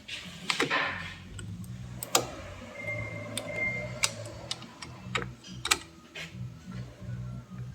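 Irregular sharp clicks and taps from hand work on drum brake parts: metal shoes, springs and tools being handled, about a dozen in all, the loudest about two seconds in and near the six-second mark. Quiet background music runs underneath, with a high steady tone now and then.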